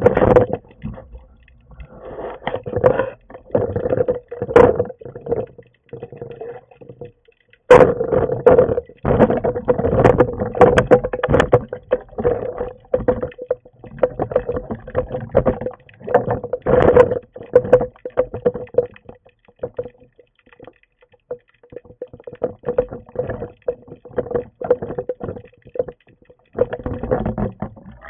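Underwater sound through a speargun-mounted camera's housing: dense, irregular clicks, knocks and rushing water as the gun and diver move, over a steady low hum. The sound drops out briefly about a third of the way in.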